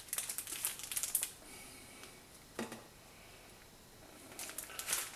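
Clear plastic sleeves of coin card packs crinkling and rustling as they are handled, in two spells: through about the first second and again near the end. A soft knock comes in between.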